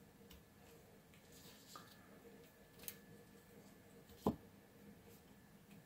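Quiet handling of thin wires and a small plastic plug being fitted into a tiny Bluetooth amplifier module's speaker socket, with a faint tick near three seconds and one sharp click a little after four seconds.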